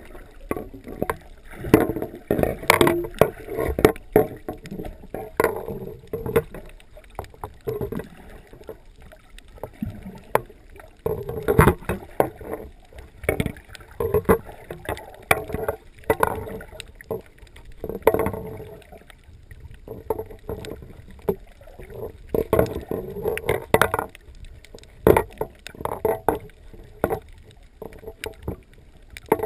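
Muffled water sloshing and knocking around a camera held underwater, in irregular surges every second or two with scattered sharp clicks.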